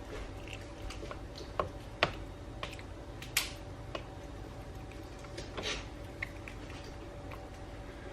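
Scattered light clicks and taps of kitchen utensils and dishes being handled, the sharpest about two seconds in, over a faint steady hum.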